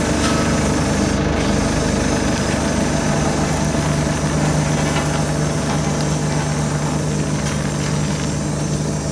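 Road roller's engine running steadily, a continuous hum whose note shifts slightly about three seconds in.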